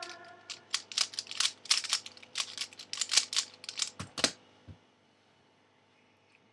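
Rapid plastic clicking of a Dayan Zhanchi speed cube being turned, several clicks a second, ending in a few low thumps after about four seconds.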